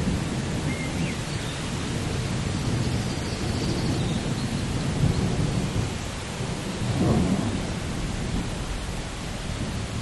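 Rainstorm: steady rain with a low rolling rumble of thunder, swelling briefly about seven seconds in.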